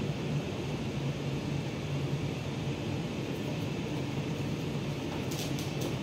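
Steady hum and rush of air from a running motor-driven blower, with a few light clicks near the end.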